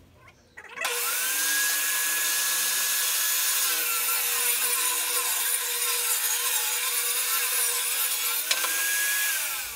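Portable table saw starts about a second in and rips a board along its fence. The motor's whine drops in pitch while the blade is loaded in the cut, rises again once the board is through near the end, and then the saw shuts off.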